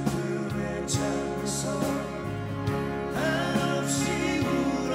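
Live acoustic folk-pop band playing: two strummed acoustic guitars over bass, keyboards and a steady drum beat, with cymbal swells about every two seconds and a voice singing over it.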